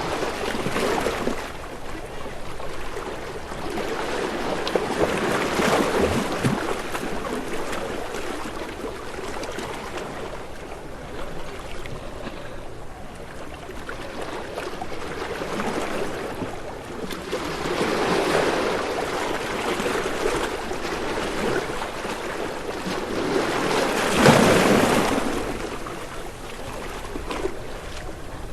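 Ocean waves washing in and breaking: surf noise that swells and fades every several seconds, the loudest surge near the end.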